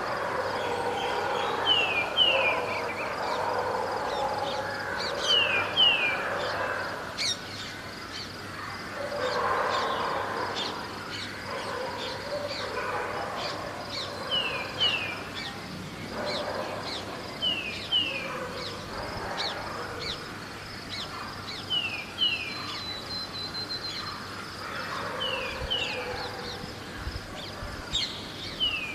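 Birds calling at dawn: one bird repeats a pair of quick descending notes about every three seconds among scattered high chirps, over a low murmur of distant city traffic.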